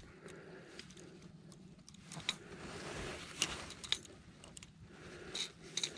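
Scattered faint clicks and scraping as a landing net holding a freshly caught fish is handled on a boat deck. A few sharper clicks come in the middle and near the end.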